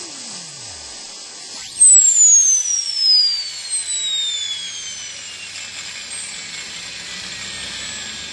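Gas-turbine engine of a Bergen Intrepid turbine model helicopter winding down. A loud whine starts about two seconds in and falls steadily in pitch, with a fainter falling tone just before it, as the generator's output drops with the slowing turbine.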